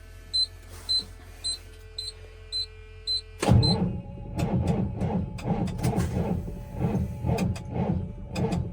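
A vehicle warning chime beeping steadily, a bit under two beeps a second. About three and a half seconds in, it is cut off by a diesel pickup's starter cranking the cold engine slowly, with an even chug of about three compression strokes a second. The engine does not catch.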